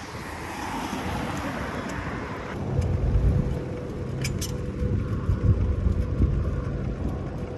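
Road traffic: motor vehicles going by as a steady rush. About two and a half seconds in it changes abruptly to a deeper, louder rumble.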